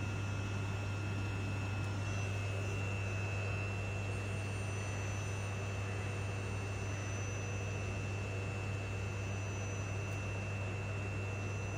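Steady electrical hum and hiss of a stationary Class 334 electric multiple unit's onboard equipment, heard inside the carriage, with a constant high-pitched whine over a low hum.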